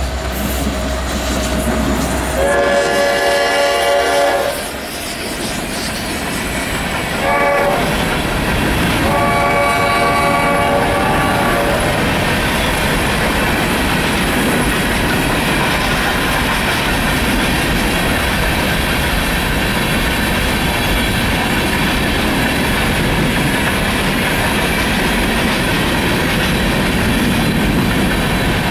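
Norfolk Southern diesel freight locomotive's chime horn sounds three blasts: a long one about two and a half seconds in, a short one, then another long one ending about twelve seconds in. After that there is the steady rumble and wheel clatter of the locomotives and cars rolling past.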